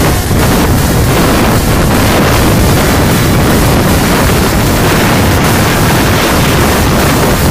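Loud, steady wind buffeting on a phone's microphone carried on a moving scooter, mixed with the engine noise of a group of scooters riding at speed.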